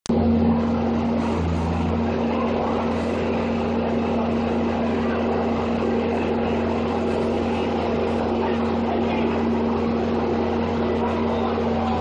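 Skid steer loader's engine running steadily, holding one even note with no revving.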